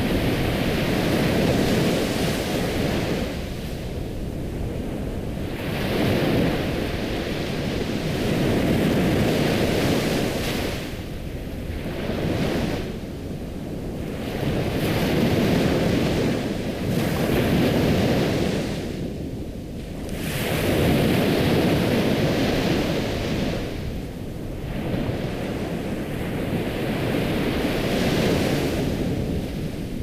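Ocean waves washing onto a shore, a steady rush of surf that swells and eases every few seconds.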